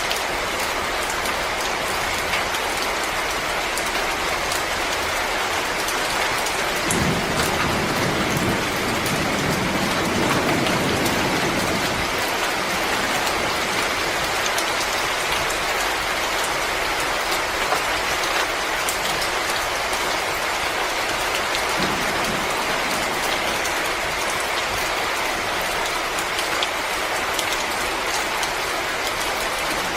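Wood fire crackling in a fireplace: a steady hiss dotted with many small sharp pops, with a deeper rumbling swell from about seven to twelve seconds in.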